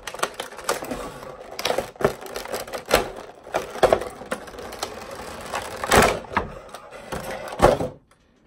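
Clear plastic packaging bag crinkling and crackling with sharp snaps as it is handled and opened, stopping abruptly about eight seconds in.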